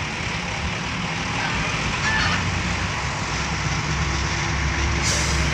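Boom truck engine running as the truck drives along, heard from the open cargo bed with road rumble and wind noise; the low engine hum grows steadier and louder near the end.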